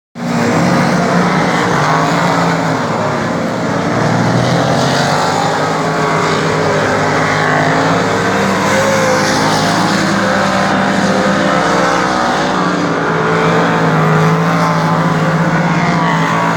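Race car engine running hard and continuously, its pitch stepping up and down as the revs change.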